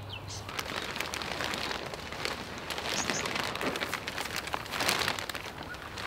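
Clear builder's plastic sheeting rustling and crinkling as it is pulled back off the poly-pipe hoops of a low seedling tunnel, a crackly rustle that swells and fades as the sheet is handled.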